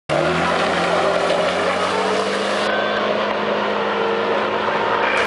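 Bus engine running hard at a steady pitch, under heavy load as the bus pulls through deep mud.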